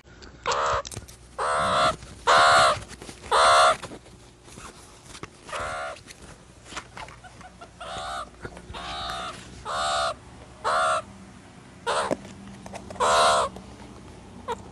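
Meerkat giving a series of about a dozen short, loud calls at uneven intervals, each under half a second long.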